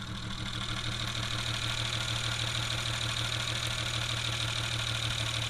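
1964 International C1200 pickup's engine idling steadily after a cold start, heard up close in the open engine bay, with a steady mechanical clatter over the low running tone.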